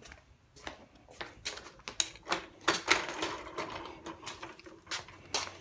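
Irregular clicks and knocks of a Kirby Sentria upright vacuum being handled and positioned on the carpet, with no motor running.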